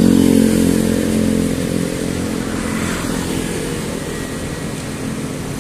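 A motorcycle engine running close by, fading away over the first two seconds, then steady street traffic noise.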